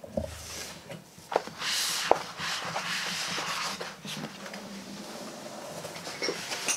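Rustling and scraping of hands rummaging through a cardboard box and its packaging, with a couple of sharp clicks about a second and a half in.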